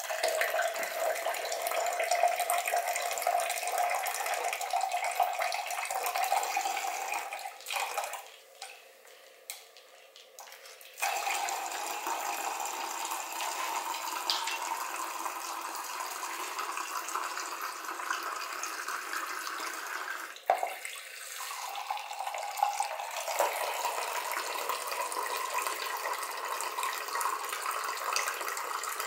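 Engine coolant pouring out of a KTM RC390 motorcycle engine's open drain-bolt hole into a drain pan: a steady splashing stream. It drops away for about three seconds partway through, then runs on.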